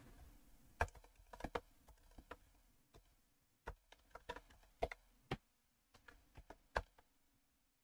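Typing on a computer keyboard: faint, irregular keystroke clicks in a few short runs with pauses between them.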